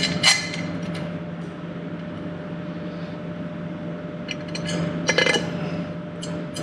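Chrome cam cover of a Harley-Davidson Milwaukee-Eight engine being handled and fitted onto the cam chest, metal tapping on metal in light clinks just at the start and again about four to five seconds in. A steady low hum runs underneath.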